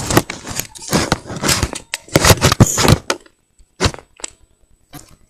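Close handling noise: irregular crackling and rustling for about three seconds, then a few separate clicks.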